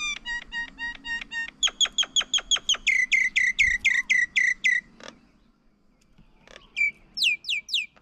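A bird calling: a fast run of sharp, downward-sweeping notes, about five or six a second, growing louder partway through and breaking off about five seconds in. Near the end comes a short burst of four higher, louder notes.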